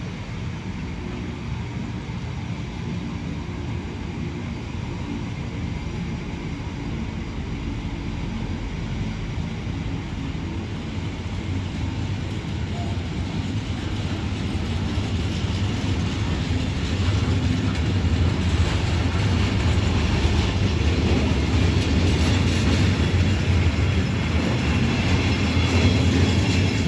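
A long intermodal container freight train rolling past, its wagon wheels and bogies rumbling on the rails. The rumble grows steadily louder through the second half.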